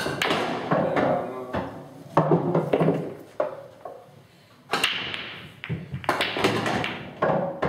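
Pool shots on a red-and-yellow ball pool table: the cue strikes the cue ball and the balls clack against each other and the cushions, then roll. Sharp knocks come at the start and again near the end.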